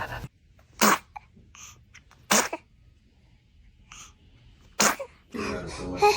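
A baby sneezing three times, short sharp sneezes a second or two apart, with a voice starting up near the end.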